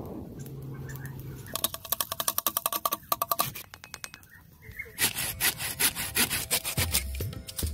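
A blade cutting into a green wooden branch in rapid, even strokes, in two spells with a short pause between. Music comes in near the end.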